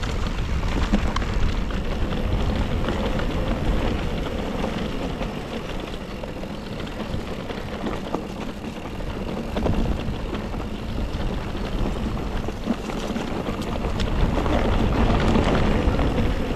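Mountain e-bike riding downhill on a trail: a steady rumble of wind on the microphone over tyre noise, with scattered small clicks and rattles from the bike, growing louder near the end.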